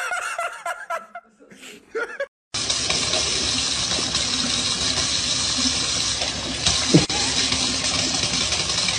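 Kitchen faucet running, a steady stream of water pouring into a sink, starting suddenly about two and a half seconds in. Before it, a brief human voice.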